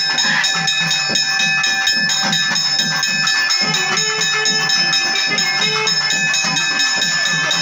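Loud festival drum music with rapid, even drumbeats and a steady high ringing tone held over it, played for the dancing.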